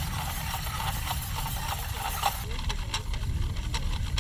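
Wind buffeting the microphone, with a few light clicks from the line reel on an old kite bar as it is handled.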